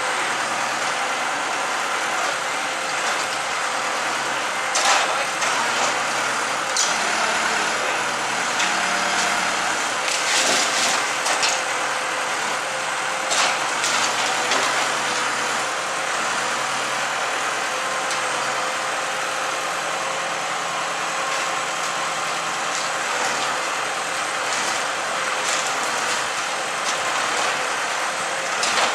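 Large bonfire burning: a steady rush of noise with occasional sharp crackles and pops.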